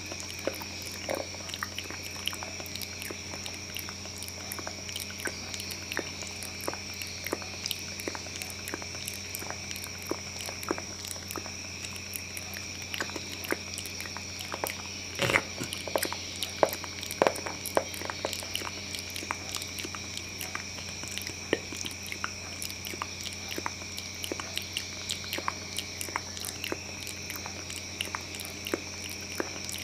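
ASMR mouth sounds close to the microphone: an irregular run of wet clicks, smacks and chewing noises, busiest and loudest about halfway through, over a steady low hum.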